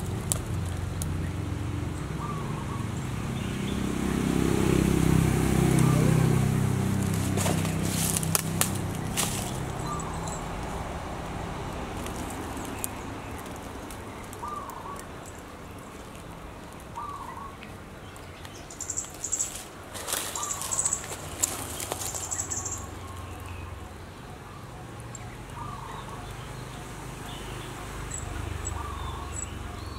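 Outdoor ground ambience. A bird gives short calls every few seconds, with higher chirping for a few seconds in the middle. A kitten rustles and scratches in dry leaf litter and dirt, and a low rumble swells and fades over the first several seconds.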